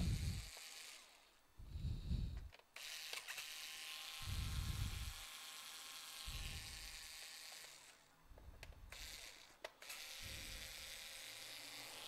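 Small handheld electric screwdriver running in spells as it backs out laptop bottom-case screws, the longest spell about five seconds. Soft low puffs come about every two seconds.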